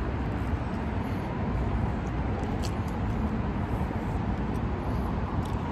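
Steady road traffic noise: an even low rumble with a hiss over it and no distinct events.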